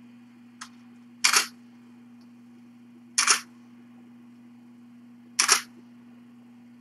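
Camera shutter firing three times, about two seconds apart, each a short sharp double click, over a steady low electrical hum.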